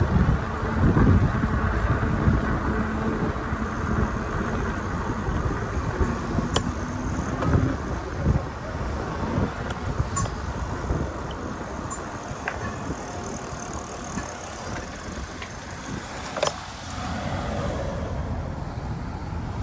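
Steady rumble of riding a bicycle through the city, with road and traffic noise and some wind on the microphone. Two sharp clicks come about six seconds in and again near the end.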